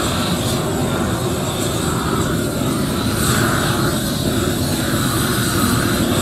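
Hose-fed gas torch burning with a steady rush as its flame is played along a 4 mm bituminous waterproofing membrane, melting its underside so it bonds to the concrete as the roll is pushed out.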